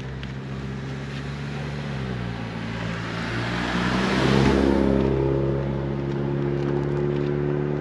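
BMW R1250RS boxer-twin engine running under way, its note stepping a couple of times. Heavy wind rushes over the microphone, rising to its loudest about four seconds in and then easing slightly.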